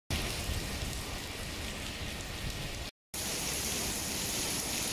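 Heavy rain falling as a steady hiss. It cuts out for an instant about three seconds in, then resumes.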